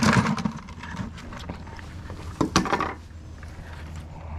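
Clatter of steel crab tongs and a blue crab dropped into a bucket. A few sharp knocks and scrapes of handling follow about two and a half seconds in.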